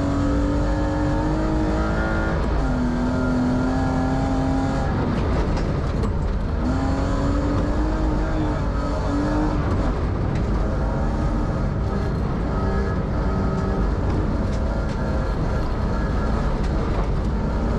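A BMW 325i rally car's straight-six engine pulling hard, heard from inside the car. Its pitch climbs and then steps down at each gear change, over a steady rumble of tyres on gravel.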